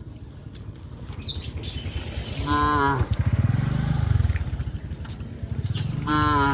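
Cattle mooing: two short calls, about two and a half seconds in and again near the end, with a low, longer moo between them.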